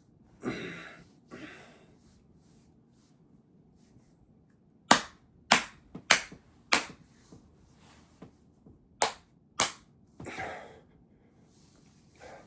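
Sharp slaps, six in all: four evenly spaced about half a second apart, then two more a few seconds later. Short breathy exhalations come before and after them.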